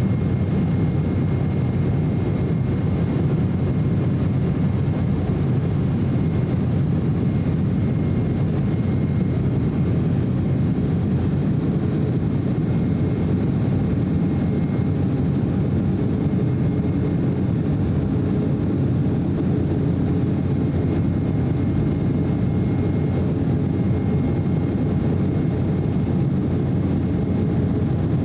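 Cabin noise inside an Embraer E190 jet airliner in flight, its CF34 turbofan engines running steadily: a low rumble with faint steady whines on top.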